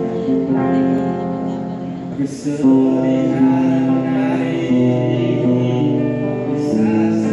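Mixed group of men and women singing together in long held notes, accompanied by an acoustic guitar. There is a short break about two seconds in, and the next phrase comes in louder.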